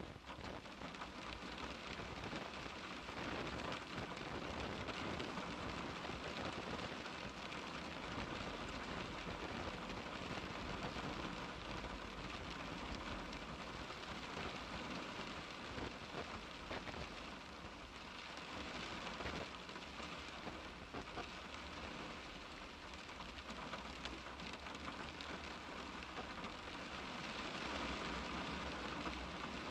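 Steady rain pattering on a car's glass, a dense hiss with countless fine drop ticks.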